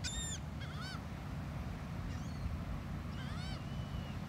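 Gulls calling: a series of short, high cries that arch and fall in pitch, some quickly repeated, over a steady low rumble of surf and wind.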